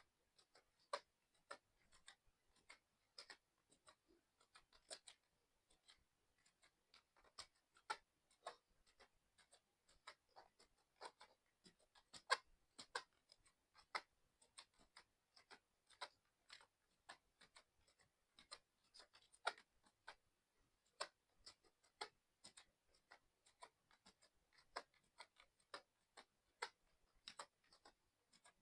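Mechanical keyboard being typed on continuously, its keys clicking at an uneven rhythm, a few keystrokes each second.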